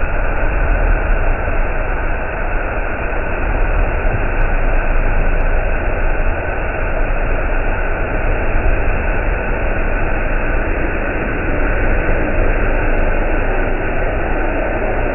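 Steady running noise of a train: a deep rumble under a constant hiss, unchanging throughout.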